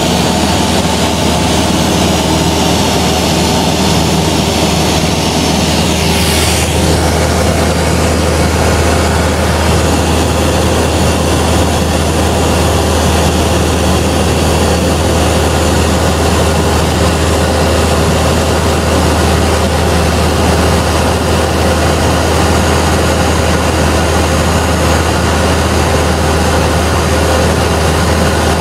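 Cessna 172's piston engine and propeller droning steadily at cruise, with rushing air noise, heard inside the cabin. About six seconds in, the drone's tone shifts slightly, then holds steady.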